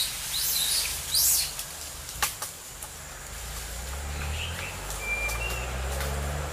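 Forest birds calling: a few quick, high, rising chirps in the first second or so and a short whistled note about five seconds in. A sharp click comes just after two seconds, and a low rumble builds in the second half.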